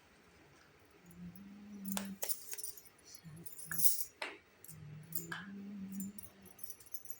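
Miniature toy kitchen pieces being handled, with a scatter of sharp clicks and clinks as small parts knock together. A low hum comes in twice, each time for about a second.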